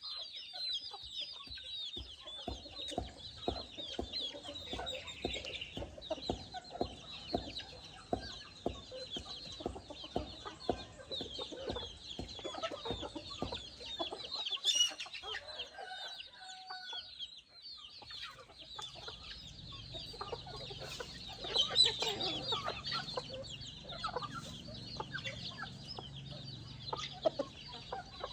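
Chickens clucking, over a constant twitter of short high-pitched chirps, with many quick taps through the first half.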